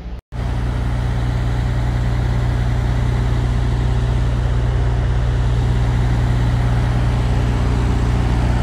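Diesel engine of a semi tractor-trailer running at a steady speed with an even, unchanging low hum.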